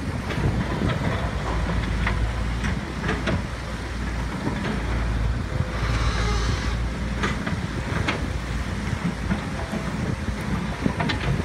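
Wind buffeting the microphone outdoors: a steady low rumble with scattered small clicks and a short hiss about halfway through.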